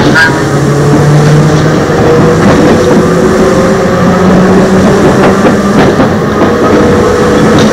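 Eizan Electric Railway train with nose-suspended traction motors, running and accelerating: the motor and gear whine climbs slowly in pitch over a steady rumble of wheels on rails.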